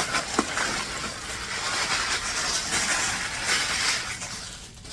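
Packaging rustling and crinkling as a new mini backpack is handled and its stuffing paper pulled out, with a short click about half a second in, the rustling dying away near the end.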